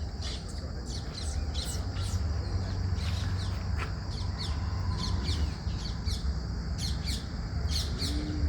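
Birds calling over and over with short, high, downward-sliding chirps above a steady high drone, with a low rumble underneath. A cow lows briefly near the end.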